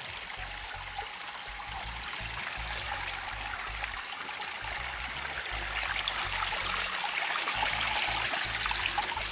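A small stream trickling, with background music's low bass notes underneath.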